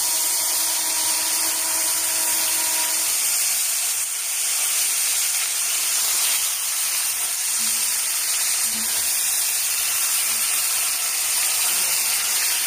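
Whole spring chickens sizzling steadily in a hot enamelled cast-iron pot, the fat and the freshly added orange juice hissing and steaming.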